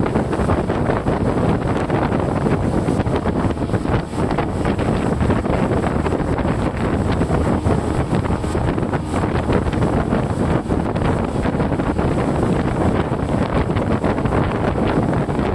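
SJX 2470 jet boat underway, heard from inside its enclosed wheelhouse: a loud, steady rush of engine, water and hull noise.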